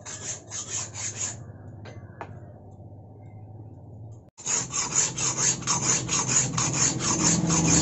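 Hand file rasping back and forth over hardened steel in rapid, regular strokes. The file doesn't catch, which the smith takes as the sign that the steel is well hardened. The strokes ease off after about a second and a half, then come back louder and quicker about four seconds in.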